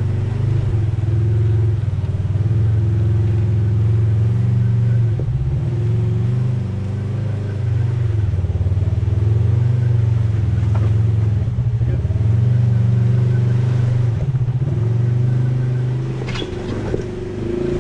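Polaris RZR side-by-side engine running at low, fairly steady revs, with small throttle changes now and then, on a slow rock crawl.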